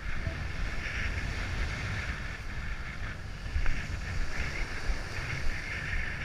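Wind buffeting the microphone with a low rumble over a steady hiss of surf, and one brief knock about three and a half seconds in.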